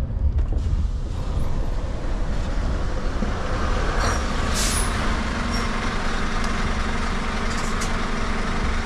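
A heavy truck's diesel engine idles steadily, heard from inside the cab. About four seconds in there is a short hiss of air from the air brakes.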